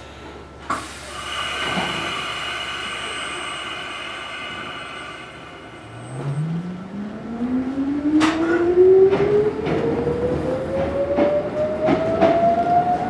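Mizuma Railway 1000-series electric train pulling away from a station: after a click about a second in and a few seconds of steady high hum, the traction motors start up and their whine rises steadily in pitch as the train accelerates, with the wheels knocking over rail joints from about two seconds later.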